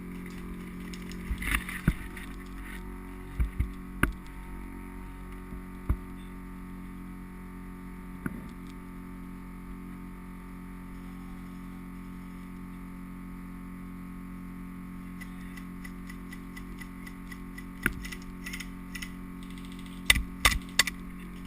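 Small anti-fog goggle fan motor humming steadily, with several fixed tones, heard muffled through a waterproof action-camera case. Short sharp clicks and knocks come now and then, bunching together near the end.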